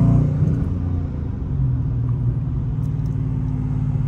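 Dodge Charger R/T's 5.7-litre Hemi V8 heard from inside the cabin: its note eases off in the first half-second, then settles into a steady low drone while cruising.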